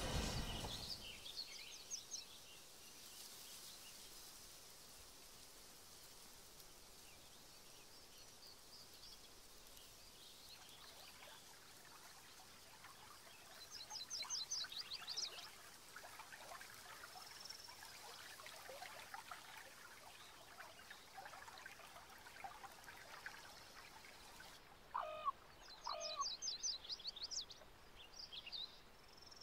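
Faint birdsong: short bursts of rapid, high trilled calls, once early, again about fourteen seconds in and several near the end, over a low hiss. At the very start the tail of a train sound dies away.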